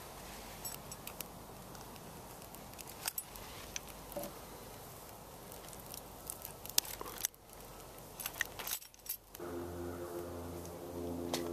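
Scattered light clicks and small rattles over a steady hiss, then background music starts about nine seconds in.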